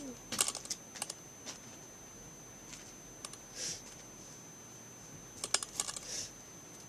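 Plastic zip-lock bag being handled, crinkling and clicking in short bursts of small sharp clicks: a cluster about half a second in, a few around three seconds, and another near the end.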